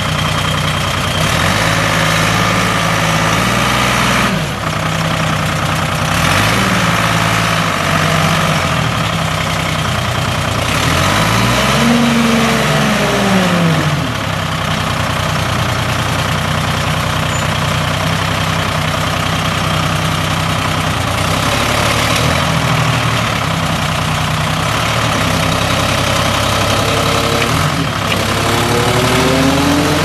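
Hy-dynamic Dynahoe backhoe's Detroit Diesel four-cylinder diesel engine running, its speed rising and falling several times and climbing again near the end.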